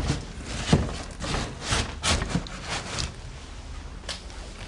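Footsteps and scuffs on a wooden floor, mixed with rustling and knocking as things are brushed and handled, with one sharp thump a little under a second in. The sounds are irregular and grow quieter after about three seconds.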